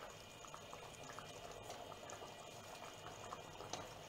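Soup of broccoli and broth simmering faintly in a pot on a gas hob, with small bubbles popping now and then.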